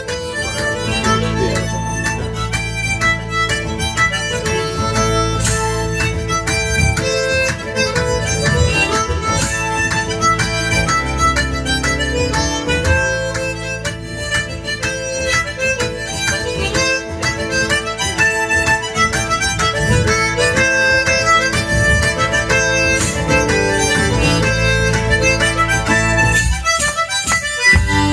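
One-man-band music played live: harmonica carrying the tune over guitar, with a regular percussive beat. Near the end the low accompaniment drops out for about a second, then the full band sound comes back in.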